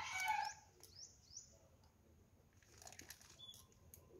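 A rooster's crow ending about half a second in, then two quick rising bird chirps about a second in. A few faint clicks follow.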